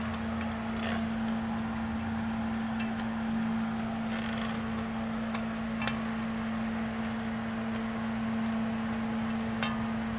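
A steady hum with a few faint metallic clicks of hand tools as the wheel speed sensor is unbolted from a front steering knuckle with a 10 mm wrench.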